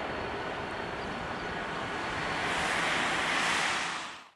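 Boeing 747 jet engines rushing as the airliner touches down on the runway, a steady roar of noise that swells and brightens about two and a half seconds in, then fades out quickly near the end.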